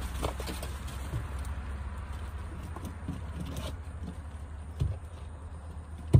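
Rummaging through a bag of parts: rustling and scattered light knocks, a sharper knock a little before five seconds in and a loud thud near the end, over a steady low hum.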